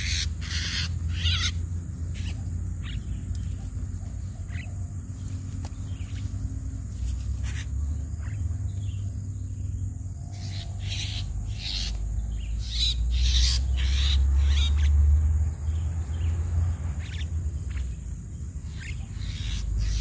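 Short, harsh calls of jalak starlings (Javan mynas), coming irregularly in clusters at the start and again about eleven to fifteen seconds in, over a steady low rumble.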